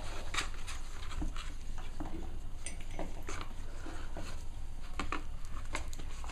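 Six-week-old Cavalier King Charles spaniel puppies scuffling in play, their paws and claws making a run of small irregular taps and scrabbles, over a low steady hum.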